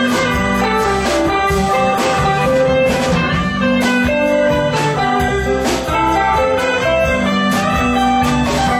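Live band playing, with guitars over keyboard and drums keeping a steady beat.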